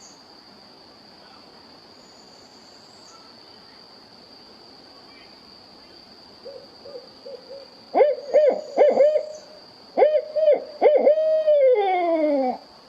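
Owl hooting: a few soft notes, then two series of loud hoots, the second ending in a long call that slides down in pitch, over a steady high drone of insects.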